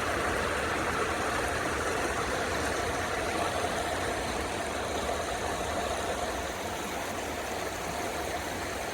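Steady rushing of a river's flowing water, an even noise with no breaks.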